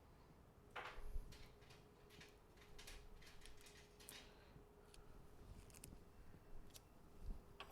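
Faint, irregular clicks and light taps of small tools and phone parts being handled on a repair bench, over a faint steady hum.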